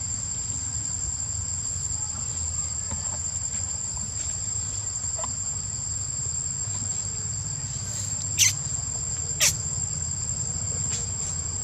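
Steady, high-pitched drone of an insect chorus, crickets or cicadas, with two brief sharp sounds a second apart near the end.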